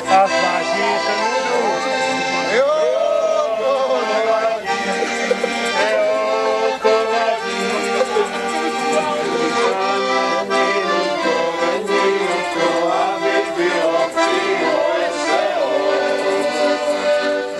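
Accordion playing a traditional folk tune without a break.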